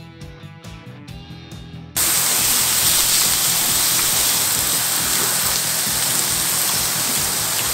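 A few seconds of background music, then about two seconds in a sudden switch to a loud, steady hiss of oil sizzling in a frying pan as battered fatsia shoots (dureup-jeon) fry.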